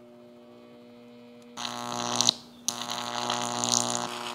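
High-voltage electric arc buzzing in fine sand at the tip of a probe pushed into it, fusing the sand into a fulgurite. A faint steady hum at first; the loud buzz starts about a second and a half in, cuts out briefly, and comes back.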